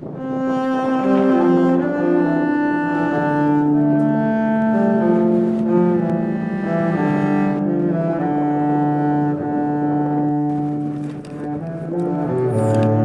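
Background music of slow bowed strings, cello-like, playing a melody of held notes over a low sustained line.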